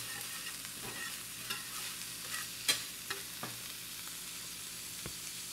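Bell pepper, shrimp and crab meat frying in butter in a pan, a steady sizzle, with a few light clicks of a utensil stirring the pan.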